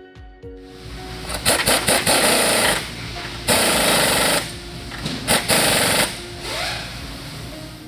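Impact wrench hammering in three bursts of about a second each, the first and last starting in short stuttering pulses, as it runs down and tightens the nut on a sway bar end link.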